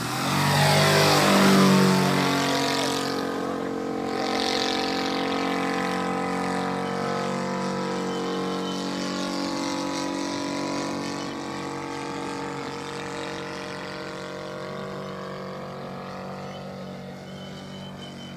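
Saito FG-84R3 three-cylinder radial petrol engine of a 1/3-scale Piper J-3 Cub model plane flying low past, its pitch dropping sharply as it goes by in the first second or two. Then a steady engine drone that slowly fades as the plane climbs away.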